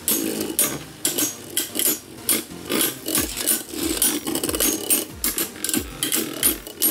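Two Beyblade Burst spinning tops whirring and grinding across a plastic stadium floor, with rapid, irregular clacks as they collide and rub against each other.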